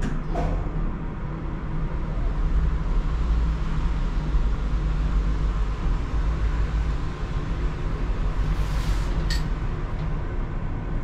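Passenger lift car running between floors: a steady low rumble and hum, with a couple of light clicks, one just after the start and one near the end.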